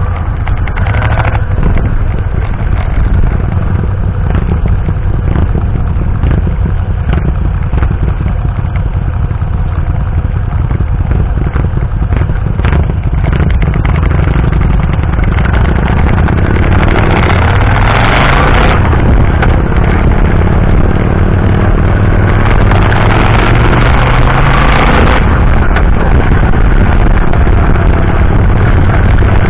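Motorcycle engine running in traffic, heard from the rider's seat, with wind noise on the microphone. In the second half the engine note climbs as the bike speeds up, and gusts of wind noise swell with it.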